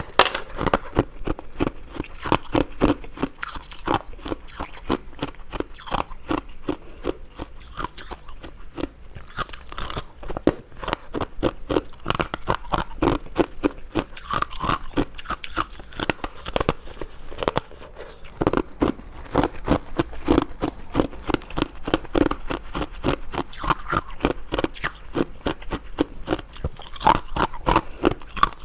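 Close-miked chewing and crunching of ice: rapid, irregular crisp crunches and crackles as the ice is bitten and ground between the teeth.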